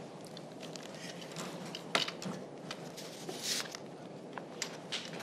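Quiet room tone with scattered small clicks and knocks and a brief rustle about three and a half seconds in, from a man settling into his chair at a table.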